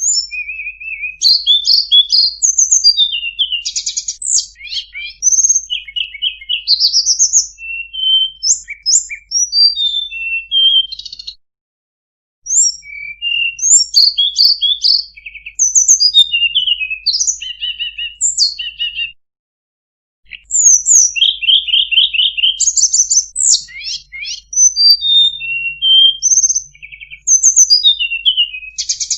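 Tledekan gunung singing a long, varied song of rapid chirps, whistles and trills, high-pitched and quick-changing, in three bouts broken by brief pauses about twelve and twenty seconds in.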